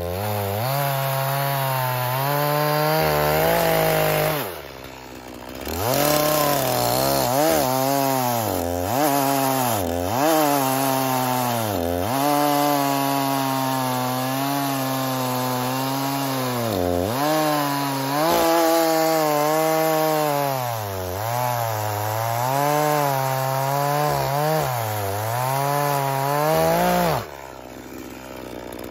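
Echo CS-4510 two-stroke chainsaw at full throttle, cutting through a log. Its pitch keeps dipping and recovering as the chain bites into the wood. The throttle is let off briefly about four seconds in, and the saw drops to idle near the end as the cut goes through.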